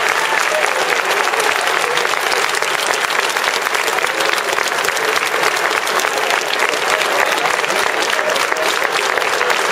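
A large crowd applauding steadily, many hands clapping at once, with voices mixed in.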